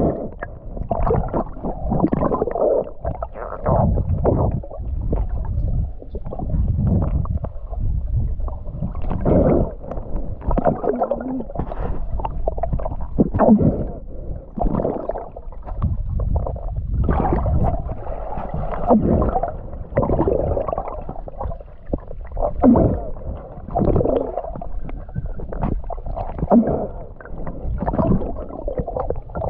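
Muffled water sloshing and gurgling around a swimmer in the water, coming in irregular surges with each stroke.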